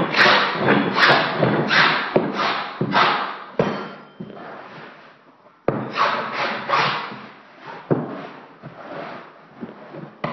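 Steel hand scraper dragged across a hardwood floor in short rasping strokes, about two a second, some starting with a sharp knock as the blade bites the wood. The strokes stop for about a second and a half midway, then resume and grow fainter toward the end.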